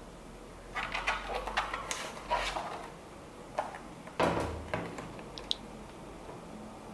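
Handling noise from an IQUNIX Lime80 mechanical keyboard being lifted and turned in the hands over a desk: scuffs and light clicks, with one louder knock about four seconds in.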